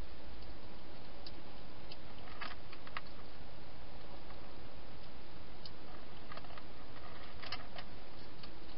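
Wild hedgehog eating inside a clear plastic feeding box: irregular small clicks and crunches as it chews and moves about at the food, over a steady hiss.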